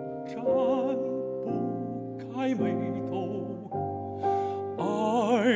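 Classical baritone singing a slow Chinese art song with wide vibrato, in short phrases over sustained piano accompaniment; the voice swells loudest near the end.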